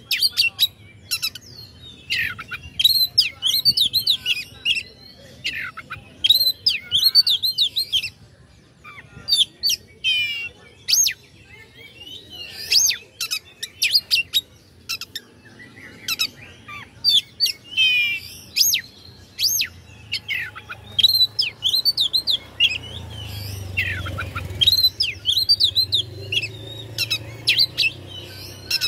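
Oriental magpie-robin (kacer) singing a varied song of quick chirps, whistles and trills in repeated phrases with short pauses between them, the heated song used to provoke rival males.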